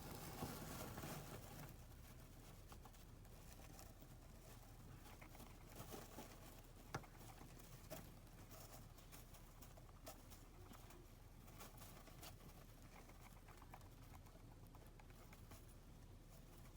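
Near silence with a hamster's faint rustling, and a few soft ticks and clicks scattered through it, the clearest about seven seconds in.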